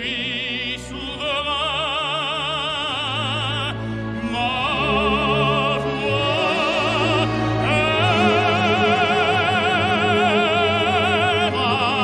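Operatic tenor singing long held notes with wide vibrato over a symphony orchestra's sustained strings, with brief breaks between phrases; the voice grows louder about two-thirds of the way in.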